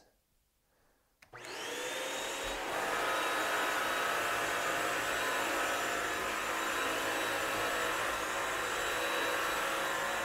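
Bissell Crosswave Pet Pro wet-dry floor cleaner switched on about a second in, its motor spinning up with a rising whine, then running steadily as it vacuums loose dog hair in dry mode.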